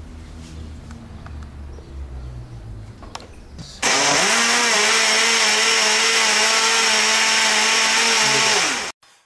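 After a few seconds of low background rumble, an electric kitchen blender runs for about five seconds. Its motor speeds up as it starts, holds a steady whirring pitch, then winds down and stops.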